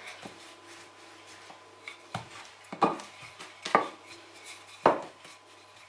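Wooden rolling pin rolling dough flat on a floured wooden board: quiet rubbing broken by about four sharp wooden knocks.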